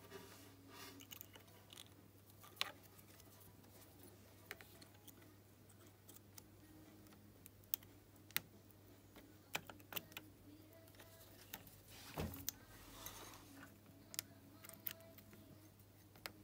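Faint, irregular light metallic clicks and taps of needle-nose pliers working a piston-pin circlip into its groove on a new piston.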